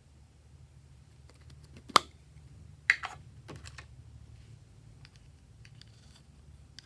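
A handful of sharp clicks and taps, the two loudest about two and three seconds in, with lighter ticks after them, over a faint low hum.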